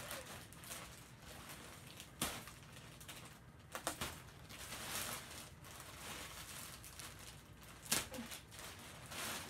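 Plastic wrapping and cardboard rustling as packed items are handled and pulled from a large shipping box, with a few sharp clicks and knocks, the loudest near the end.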